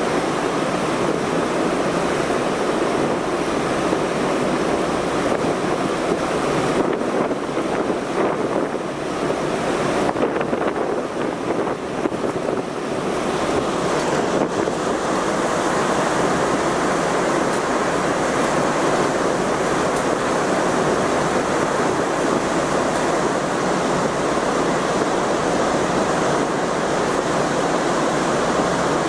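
Steady rushing noise of wind over the microphone and sea water on the open top deck of a car ferry under way. The hiss turns brighter about halfway through.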